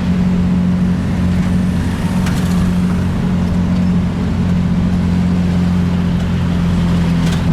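Motor vehicle engine running at a steady speed, a constant low hum with road noise, heard from on board while moving.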